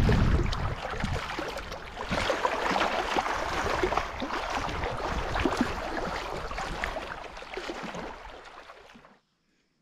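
Choppy lake water splashing and lapping in strong wind, with wind buffeting the microphone at first. The splashing fades and then cuts off near the end.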